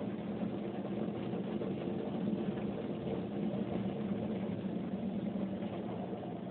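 Automatic car wash machinery running with water spraying over the car, heard from inside the cabin: a steady low mechanical hum over a wash of noise, easing off slightly near the end.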